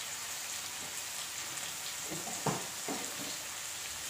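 Half-cooked potatoes, onions and tomatoes sizzling as they fry in a metal kadai, a steady hiss, with two light knocks about two and a half seconds in.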